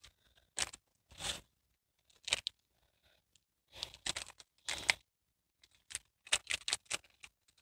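Short bursts of rustling and crinkling from a small plastic bag of charms being handled over crinkle-cut paper box filler, coming in irregular clusters.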